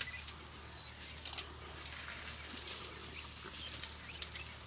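Quiet bush ambience with a few faint rustles and twig snaps from an African elephant calf handling dry branches with its trunk, the clearest about a second in and near the end.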